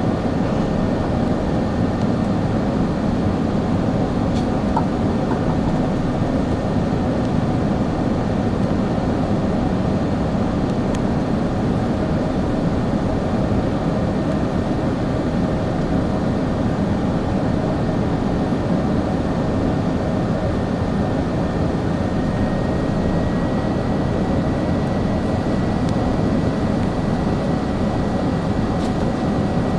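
Cabin noise inside a Lufthansa Airbus A380 in flight: a steady, loud rush of airflow and engine rumble heard from a passenger seat, with a faint high whine that steps slightly higher about two-thirds of the way through.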